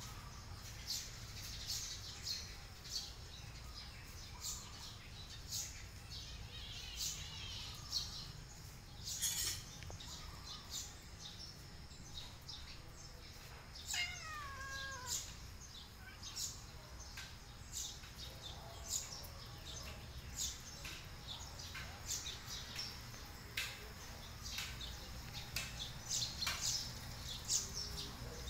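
A domestic cat meows once about halfway through, a single call falling in pitch, with short high chirps scattered in the background.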